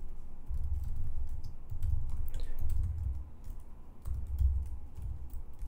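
Typing on a computer keyboard: key clicks with dull low thuds, in several uneven runs separated by short pauses.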